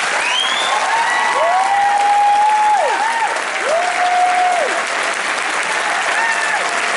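Audience applauding and cheering after a live song, with two long whoops from single voices in the first half.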